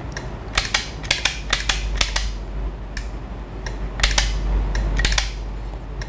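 A run of sharp, irregular clicks from a self-reset push-button wall switch being pressed repeatedly, with the relay controller switching the lamp on and off.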